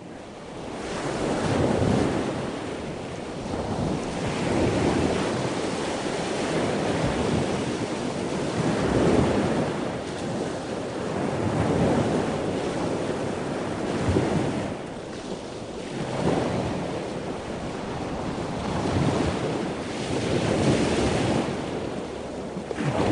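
Sea surf: waves breaking and washing ashore in slow surges every few seconds, with wind buffeting the microphone.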